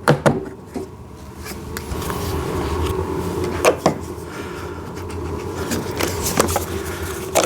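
Short sharp clicks and knocks of hard plastic as a kids' ride-on car's side mirrors are pushed into their mounting holes. There is a pair at the start, a pair near four seconds and a few more toward the end, over a steady low hum.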